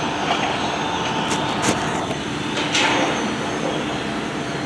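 Steady drone of workshop machinery with a faint hum, broken by a few short sharp clicks between one and three seconds in.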